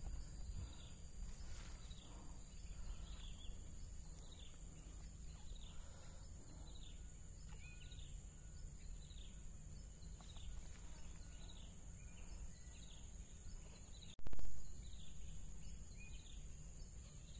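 Steady high insect drone with a short chirping call repeating about twice a second, over a low rumble. A brief loud knock about 14 seconds in.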